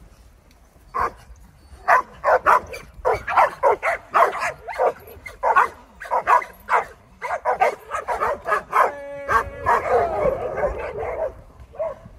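A pack of dogs barking and yipping excitedly, with many short, overlapping barks. They begin about a second in and thin out near the end. A little after two-thirds of the way through there is one brief drawn-out whine.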